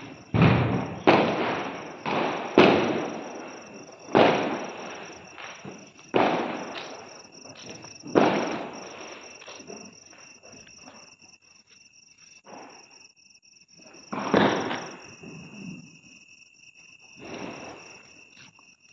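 Firecrackers going off one after another: about ten sharp bangs, closest together in the first few seconds, each dying away over a second or two. Crickets chirr steadily underneath.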